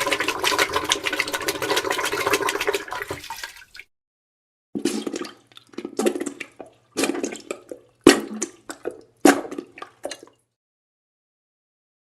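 Wet, sputtering diarrhea and fart sounds: one long crackling splutter of nearly four seconds, then five shorter separate bursts over a faint low hum.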